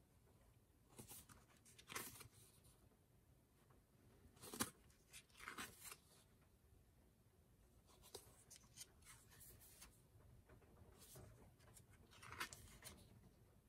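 Faint rustling of photobook pages being turned by hand: a series of short paper swishes, with one sharper page flick about four and a half seconds in.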